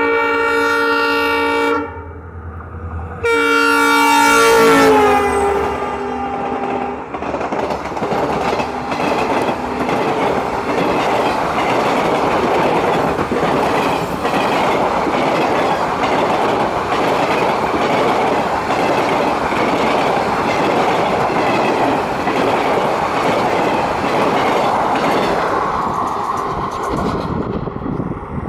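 WDP-4B diesel locomotive's horn sounding two long blasts, the second dropping in pitch as the locomotive passes. The express's coaches then rush past at speed with a steady clatter of wheels over the rail joints, fading away near the end.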